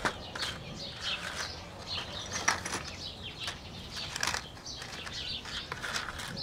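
Scattered light clicks and rustles, irregular and short, of small electronic parts being handled and searched through by hand.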